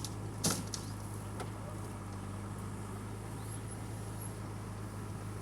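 Diesel engine of the backhoe loader or tractor running steadily at a low hum, with a sharp click about half a second in.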